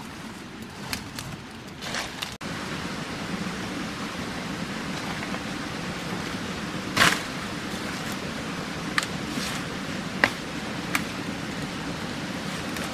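Steady hiss of forest ambience with a few sharp strikes of a hand tool into ground vegetation. The loudest comes about seven seconds in and three lighter ones follow over the next four seconds. At the start, softer steps and rustles sound in dry leaf litter.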